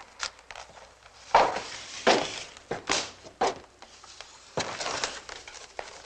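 A run of irregular sudden knocks and crashes, about half a dozen, the loudest about a second and a half in.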